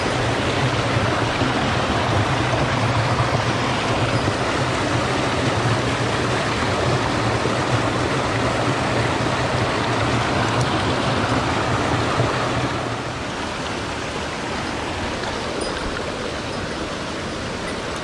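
Mountain stream rushing and splashing over rocks at a small cascade, a steady rush of water that gets somewhat quieter about thirteen seconds in.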